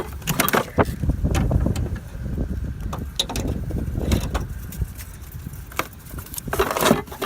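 Handling noise: irregular clicks, knocks and rustles of tools and gear being moved, over a low rumble, with a longer rustling scrape near the end.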